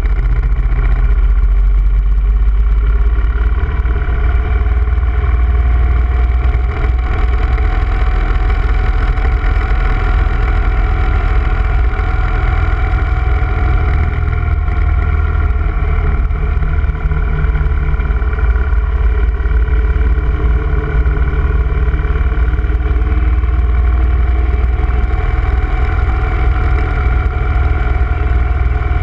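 Motorcycle cruising steadily along a road, its engine running under heavy wind rumble on the microphone.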